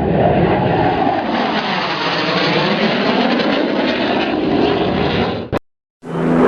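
Airplane flying past: a loud, steady rush of engine noise with a whooshing band that sweeps down and then back up in pitch. It cuts off with a click about five and a half seconds in, and a different steady, droning engine sound starts half a second later.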